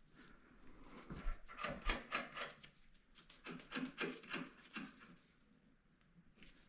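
Hand-tool work on a buggy's front end at the tie rod: two runs of quick clicks and knocks, about five a second, the first about a second in and the second about halfway through.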